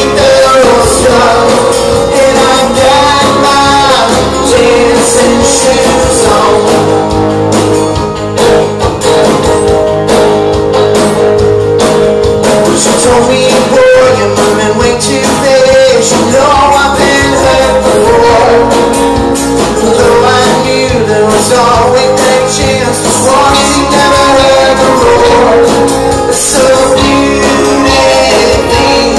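Live band playing a rock song: a male voice singing over acoustic and electric guitars, bass and drums, loud and continuous.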